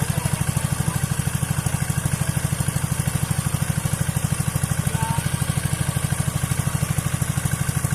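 Single-cylinder diesel engine of a 'shallow machine' irrigation pump running steadily at an even, rapid beat while it pumps water out of a pond.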